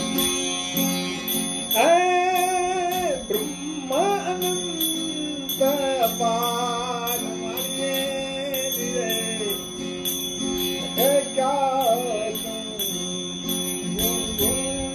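Devotional bhajan music without words: a lead melody of long, sliding, wavering notes over a steady drone, with light high-pitched percussion keeping an even beat.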